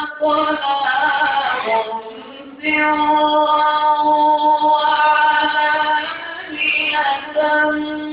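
A man reciting the Quran in the melodic, sung tajweed style, holding long high notes. An ornamented falling run comes about a second in, followed by a short break for breath, then another long held note with more ornamentation near the end.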